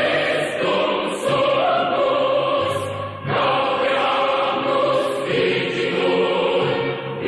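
Background choral music: voices singing long held chords over a low bass, the chord changing every two to three seconds.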